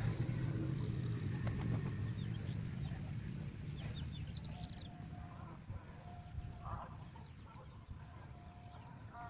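Soft clucks from a chicken feeding on rice, with small birds chirping in short high bursts. A low rumble is heard over the first half and fades away.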